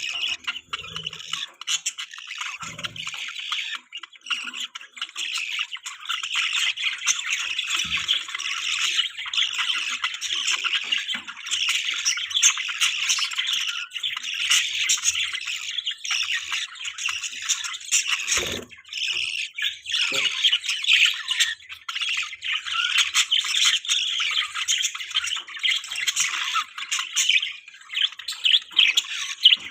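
A group of budgerigars chattering and chirping without pause, with a few short knocks in between.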